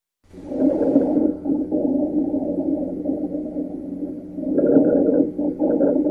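Recorded lung sounds heard through a stethoscope: a continuous, low-pitched musical breath sound, several steady tones humming together, typical of abnormal continuous lung sounds such as rhonchi or wheezes. It starts abruptly and swells again about four and a half seconds in as the breath goes on.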